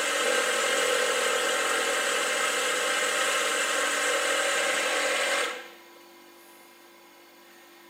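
Laboratory vortex mixer running at speed with a 50 mL Falcon tube pressed into its cup, shaking the sample with the extraction solvent and salts; the steady whir cuts off about five and a half seconds in as the mixer is switched off.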